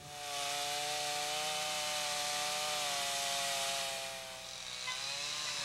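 Chainsaw running steadily while cutting into a wooden canoe hull, its pitch sagging briefly near the end before picking up again.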